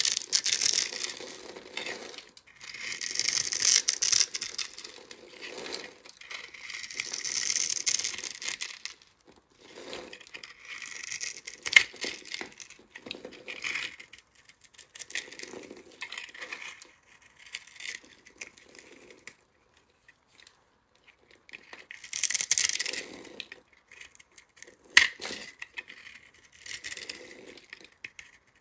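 A utility knife blade slicing through a dry bar of soap that has been scored into a grid, the tiny soap cubes crumbling off. It goes in repeated strokes of one to two seconds, with a few sharp clicks along the way.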